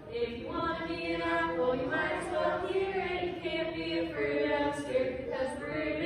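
A group of voices singing a worship song together, with long held notes.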